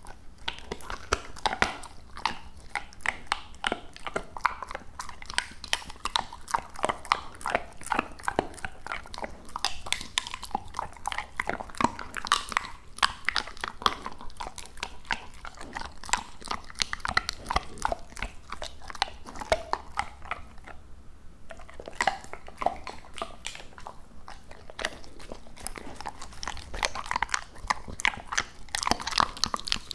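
Labrador retriever chewing raw duck close to a microphone: a dense run of wet crunching and crackling bites, with a short pause about two-thirds of the way in.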